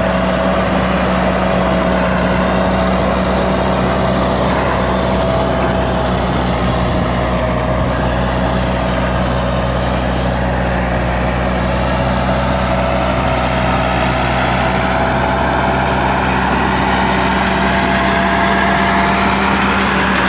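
John Deere 2140 tractor's four-cylinder diesel engine running steadily at work, with a constant whine over the engine note.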